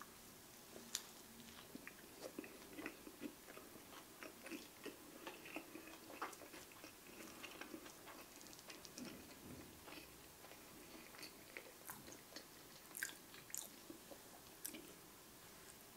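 A man biting into a cornflour-crusted turkey burger in a bun and chewing it, with faint, irregular crunches and mouth clicks scattered throughout.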